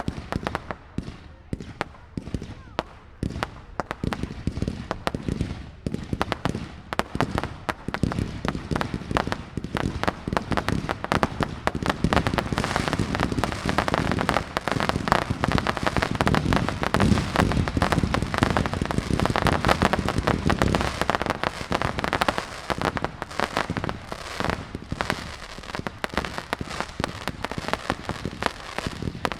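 Fireworks going off in rapid succession, sharp cracks and pops at first, building to a dense crackling barrage about halfway through, then thinning toward the end.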